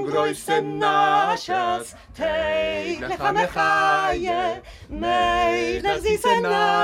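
A woman singing unaccompanied, in held notes with a wavering vibrato and short breaks between phrases.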